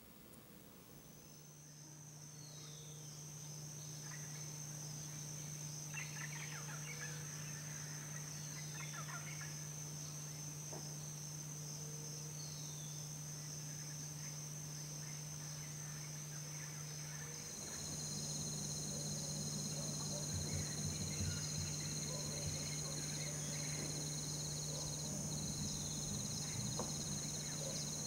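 Outdoor evening ambience: a steady high-pitched insect drone over a low steady hum, with birds calling in short falling chirps and rapid rattling runs. A second, higher layer of insect drone joins about two-thirds of the way in.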